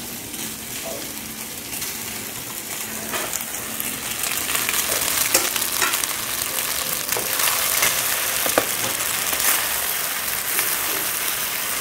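Tomato-vegetable sauce sizzling in a nonstick wok as boiled penne is tipped in and stirred with a spatula. The sizzle grows louder, with scattered sharp clicks as it is stirred.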